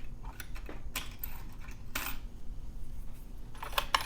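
Small metal clicks and clinks of lockpicking tools handled against a padlock: single clicks about one and two seconds in, then a quick cluster of louder clicks near the end.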